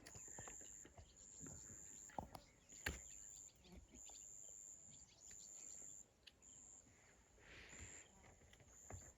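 Faint bush ambience: an insect's high-pitched chirps repeating about once a second, with two sharp clicks about two and three seconds in.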